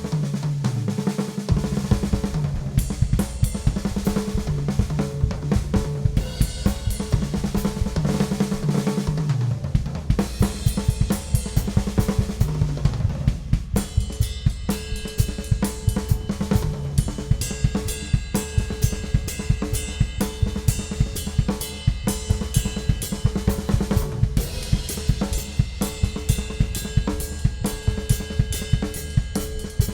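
Ludwig Classic Maple drum kit with a Ludwig Supraphonic snare and Paiste cymbals, played continuously: snare, bass drum, hi-hat and cymbals. The first half has a low pitched ring under the hits; from about halfway through the playing turns into a steady, fast pattern with more cymbal.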